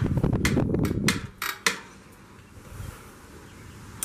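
Light metallic clicks and clinks of hand work on a pit bike's rear brake, about half a dozen in the first second and a half over a low rumble, then quieter, with one more click at the end.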